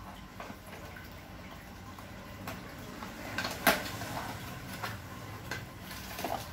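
Small cardboard box of a red dot sight being handled and opened: scattered light taps and clicks, the sharpest a little past halfway through.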